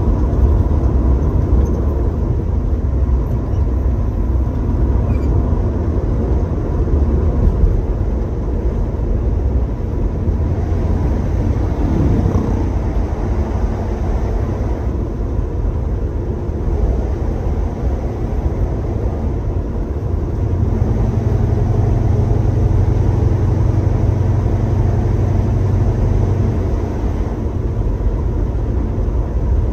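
A 1966 Chevrolet Chevelle's engine running as the car drives along, with road and tyre noise, heard from inside the cabin. For several seconds in the latter part it settles into a steadier droning hum.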